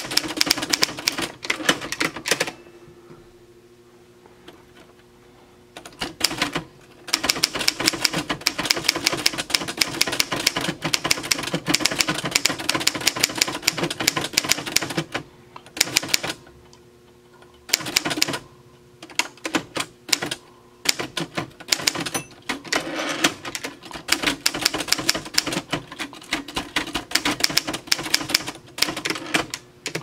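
A 1952 Remington Super-Riter manual desk typewriter being typed on: quick runs of sharp clacks as the typebars strike the platen. The runs come in bursts broken by pauses, the longest lasting a few seconds near the start.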